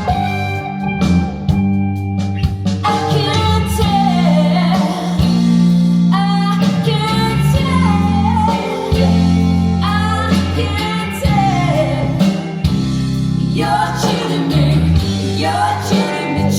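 Rock song played through Linn 360 hi-fi loudspeakers: a sung lead vocal comes in about three seconds in over a steady bass line, guitar and drums.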